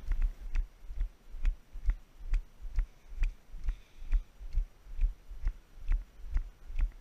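A Nordic walker's brisk stride: a dull thump about twice a second, each with a sharp click of the pole tips striking the paved path.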